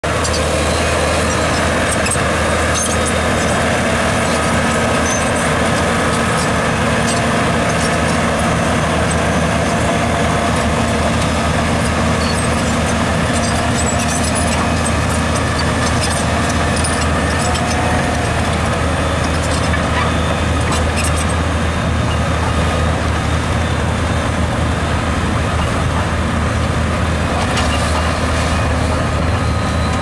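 Caterpillar 977L Traxcavator tracked loader's diesel engine running steadily under load as the machine drives, with scattered clicks from the machine throughout.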